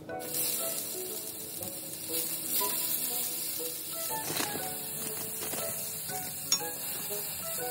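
Bean sprouts sizzling as they stir-fry in a hot oiled rectangular frying pan, the sizzle starting just after they go in and stirred with a wooden spatula. One sharp click about six and a half seconds in, under light background music.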